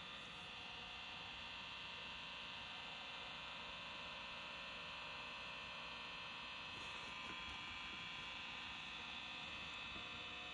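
Faint, steady electric hum with hiss from a small motorized display turntable running, with no distinct knocks or clicks.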